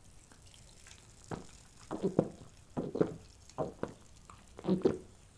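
A man gulping cola from a glass mug: a run of about eight swallows roughly half a second apart, starting about a second in.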